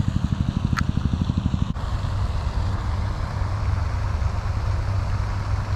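Small spincast fishing reel being cranked, a fast, even whirring pulse that stops abruptly under two seconds in. After it a steady low rumble carries on, with one short chirp about a second in.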